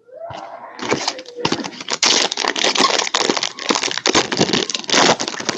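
Foil trading-card pack wrapper being torn open and crinkled by hand: a dense, continuous crackle that builds about a second in.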